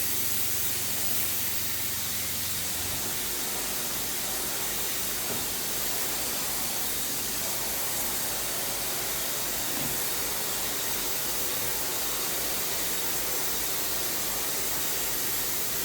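Graco Pro XP60 electrostatic air spray gun spraying paint: a steady hiss of atomizing air and paint mist. A low hum underneath drops out about three seconds in.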